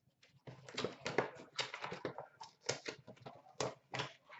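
Hands tearing open trading card packs and handling the cards: wrapper crinkling and tearing with quick rustles and sharp snaps, starting about half a second in.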